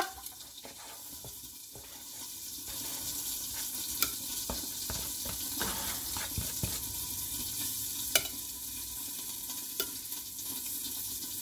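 Steady frying sizzle from a lidded frying pan on the stove, with metal kitchen tongs clicking and scraping now and then as salad is served onto a plate. The sizzle grows a little louder a few seconds in; sharp clicks come about four, eight and ten seconds in.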